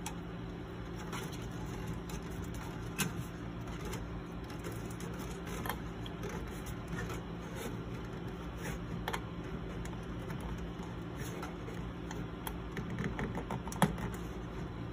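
Scattered faint clicks and taps as a CPU cooler fan's 4-pin connector and its cable are handled and pushed onto the motherboard header, over a steady low hum. The sharpest click comes near the end.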